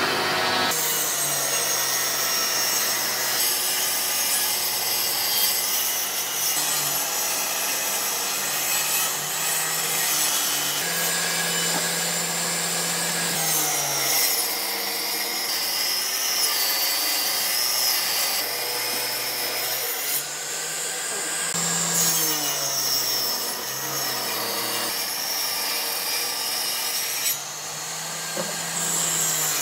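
Table saw running and cutting wooden boards, its sound shifting as each board is fed through the blade.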